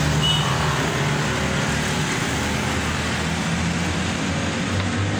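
Steady road traffic: cars and motorcycles passing, their engines giving a continuous low hum under an even noise.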